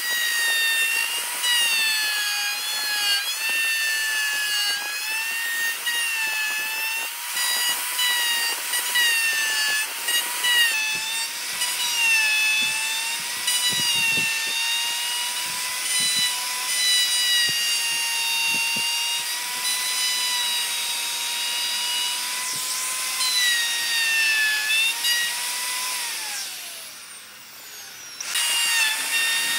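DCA AMR02-12 electric plunge router running with a high whine as its straight bit cuts a pocket into a wooden tabletop, the pitch sagging and recovering as the cut loads the motor. Near the end the whine falls away and the router winds down briefly, then runs up again.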